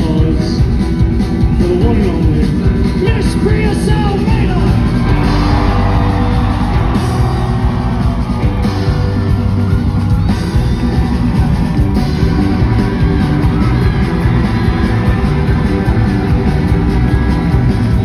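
A live country-rock band playing loudly through the venue's sound system, with electric guitar, bass and drums.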